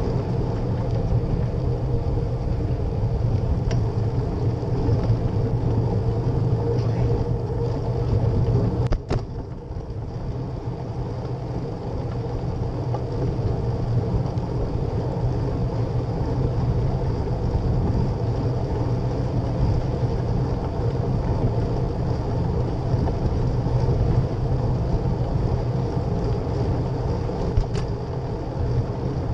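Steady rumble of wind on the microphone and bicycle tyres on asphalt while riding, with a sharp knock about nine seconds in after which it is briefly quieter.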